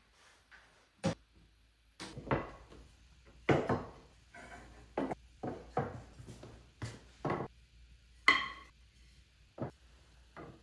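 Walnut furniture rails and clamps knocking and clattering on a wooden workbench as they are handled, about a dozen irregular knocks, one near the end with a brief ring.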